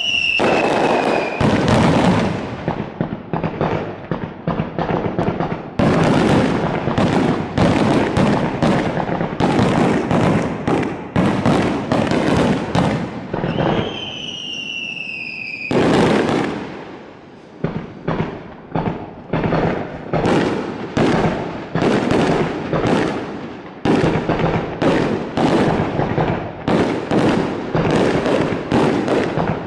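Aerial fireworks display: rapid volleys of shells bursting with sharp bangs and crackle. A falling whistle sounds near the start and again about fourteen seconds in, and the bangs briefly thin out a few seconds after that.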